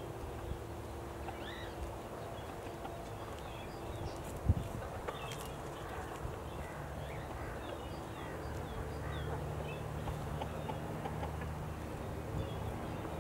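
Outdoor poultry-yard ambience: short high bird calls scattered throughout over a steady low drone, with one sharp knock about four and a half seconds in.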